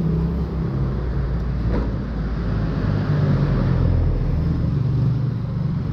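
Motorcycle engine running steadily at low speed as the bike is ridden slowly, a low engine note with small shifts in pitch.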